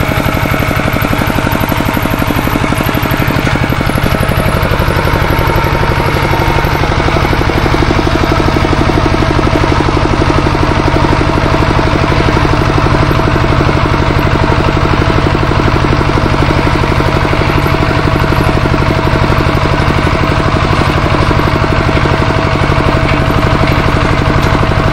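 Single-cylinder diesel engine of a two-wheel walking tractor running steadily with a fast, even beat while hauling harvested rice.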